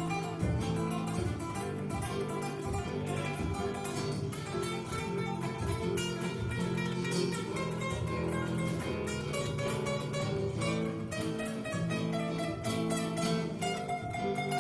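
Background music: plucked strings, guitar-like, picking a steady run of quick notes.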